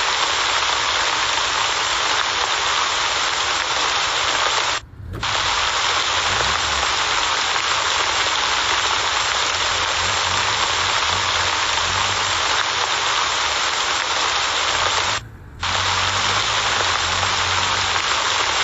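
Steady hiss of heavy rain, breaking off twice for a fraction of a second, with a faint low wavering hum underneath.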